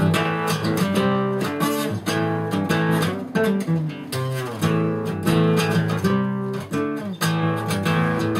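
Acoustic guitar strummed, playing a run of chords that change as it goes.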